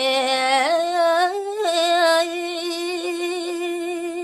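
A woman singing a Balinese pupuh verse solo, with no accompaniment: an ornamented turn in the first second or so, then one long held note with a slight waver.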